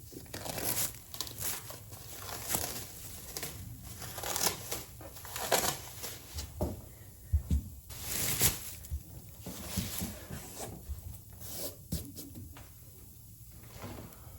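Handling noise: irregular rustling and scraping with a few sharp knocks as a vinyl floor plank and tools are moved about.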